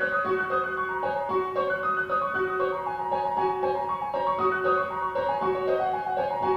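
Orchestral music in which a piano plays a quick pattern of short, detached notes that keeps returning to one repeated middle note, over a light accompaniment.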